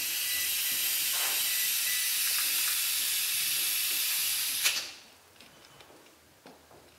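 A person blowing a long, steady breath into a handheld breathalyzer's mouthpiece, giving a strong airy hiss for a breath-alcohol test. The hiss stops with a short click about four and a half seconds in.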